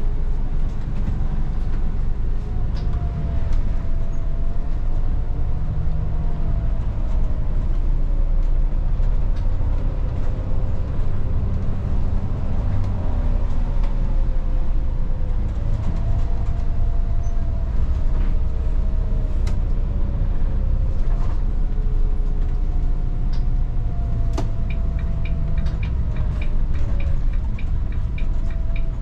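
Volvo 8900 city bus running on the road from on board, a steady low rumble with a whine that rises and falls with speed. A regular ticking starts near the end.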